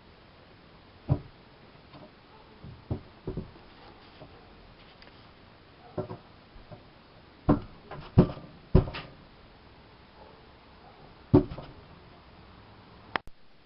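Irregular thumps and knocks, about eight of them spread unevenly, with a sharp click near the end.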